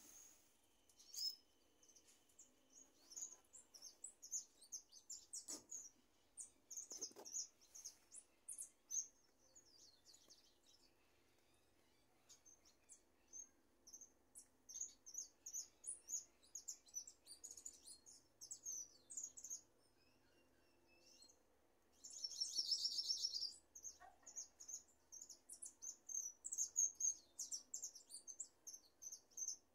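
Caged saffron finch (jilguero) singing in short, high chirping phrases broken by pauses, as it gradually warms up into song. About two-thirds of the way through it gives a louder, rapid buzzing trill.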